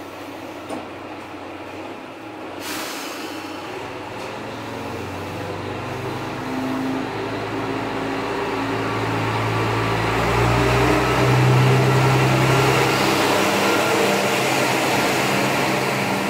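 MRT300-series diesel railcar pulling away from a station. A brief hiss comes about three seconds in; then the engine works up under load, growing louder as the car moves off and passing its loudest about two-thirds of the way through.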